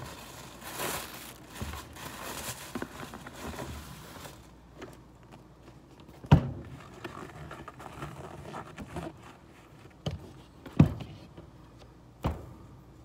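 Rustling of packaging for the first few seconds as sneakers are lifted out of their shoe box, then a few sharp knocks as a shoe and the box are handled and set down on the tabletop, the last near the end.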